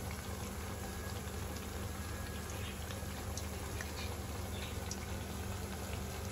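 Gram-flour pakoras of potato, onion and spinach deep-frying in hot oil in a karahi on a low flame: a steady sizzle and bubbling with scattered small crackles.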